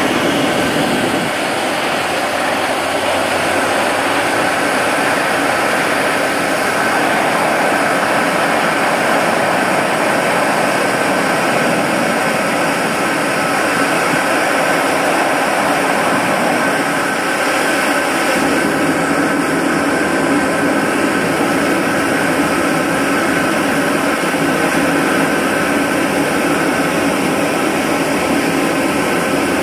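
Jet engine running steadily, a loud even roar with a faint whine over it.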